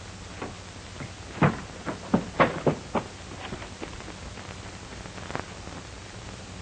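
A run of sharp knocks and thuds, about ten in three and a half seconds and loudest in the middle, then a single one a couple of seconds later, over the steady hiss and low hum of a 1940s film soundtrack.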